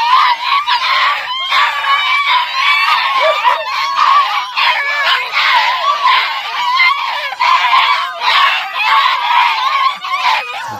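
A litter of 47-day-old American Foxhound puppies howling and yelping together, many overlapping wavering cries without a break.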